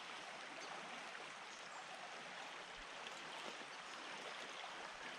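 Faint, steady rush of a small stream's water flowing over its bed.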